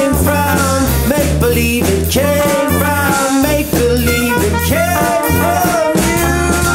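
Dixieland jazz band playing at swing tempo: trumpet, trombone and clarinet lines over sousaphone bass notes, resonator guitar and drums.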